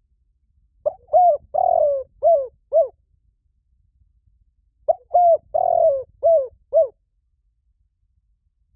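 Spotted dove (cu gáy) used as a lure bird, cooing its song: two phrases of about five hooting notes each, a short note, a coo, a longer drawn coo, then two shorter ones, the phrases about four seconds apart.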